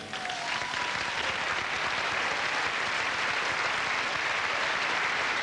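Audience applauding, rising over the first second and then holding steady, as the last of the music fades out at the start.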